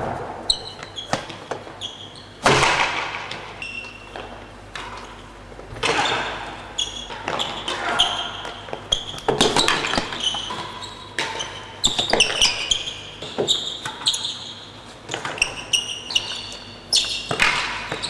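Real tennis rally: the solid, cloth-covered ball is struck by wooden rackets and slaps off the court's walls and floor. Sharp, irregular impacts ring out one after another, each echoing in the enclosed court.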